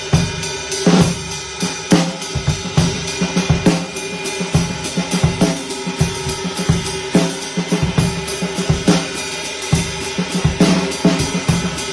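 Drum kit groove played over an Amedia handmade ride cymbal: kick and snare hits under a steady ride pattern, with the cymbal's wash ringing on throughout.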